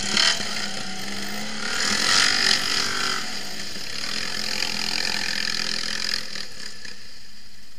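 Quad bike (ATV) engine revving unevenly as it pulls away through mud and water, then fading as the quad moves off.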